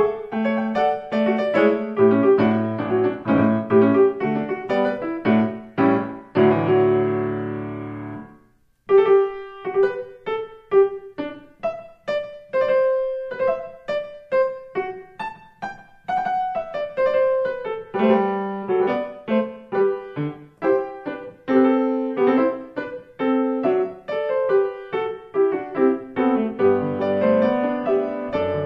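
Solo piano music. Full chords play for the first eight seconds, then stop briefly; the piano comes back with a quicker melody of single notes that steps downward, over a bass line.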